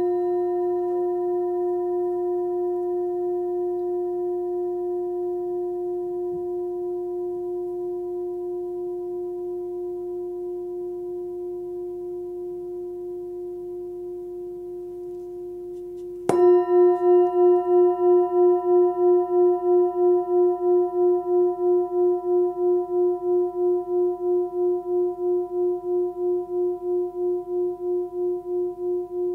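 13.5 cm forged Tibetan singing bowl with a fundamental near 357 Hz (F), struck with a felt-covered mallet. It rings with a slowly fading, gently pulsing tone. About halfway through it is struck again and rings louder, with a quicker pulse.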